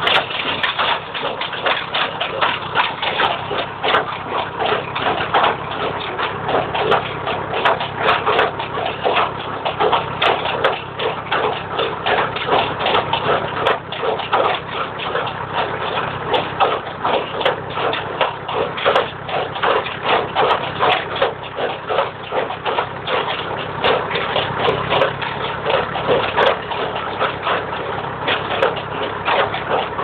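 Massey Ferguson MF 14 small square baler running, its mechanism clattering rapidly and unevenly as it packs and pushes out hay, over the steady drone of the tractor driving it.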